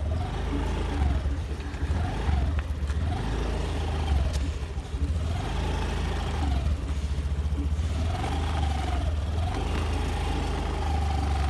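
Small fuel-injected Honda two-wheeler's engine running at low speed, with a whine that rises and falls every second or two as the throttle is eased on and off. A heavy low rumble of wind on the microphone runs under it.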